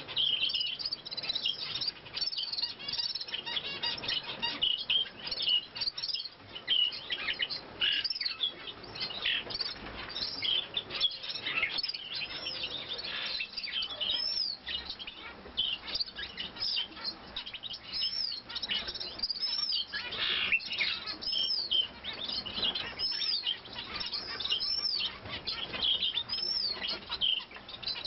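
Long-tailed rosefinches chirping: a continual stream of short, high calls, with a clear, brief up-and-down whistled note repeated every few seconds.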